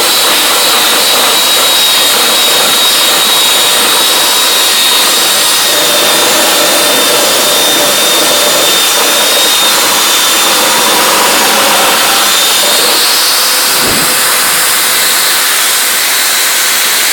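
Wet/dry shop vac running steadily, drawing loosened lint out of a dryer vent pipe: a continuous rush of air with a thin high motor whine.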